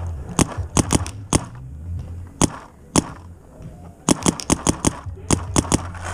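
Paintball markers firing, sharp cracks in single shots and quick pairs, then a rapid string of about seven shots a little after four seconds in and a few more shots near the end.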